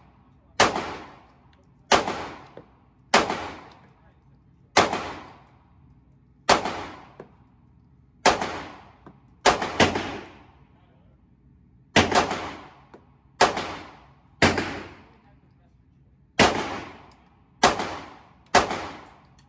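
9mm pistol fired in slow, single aimed shots at an indoor range: about fifteen shots roughly a second apart, twice as a quick pair, each followed by a short echoing tail off the range walls.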